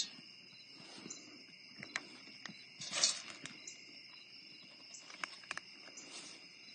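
Steady chorus of crickets, an even high trill. Scattered small clicks and one brief louder rustle about three seconds in.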